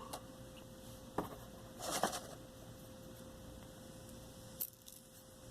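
Faint handling noise of small lock parts: a sharp click about a second in, a short scrape around two seconds, and another small tick near the end, as the padlock's pins and springs are taken out and looked over.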